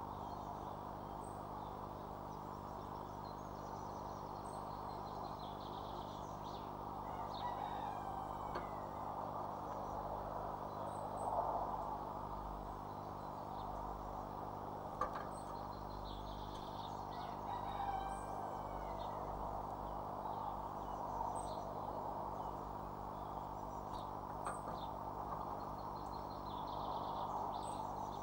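Wild birds calling and singing, with repeated short high chirps and several falling trilled phrases, over a steady low hum. A sharp tap is heard twice, about halfway through and again near the end.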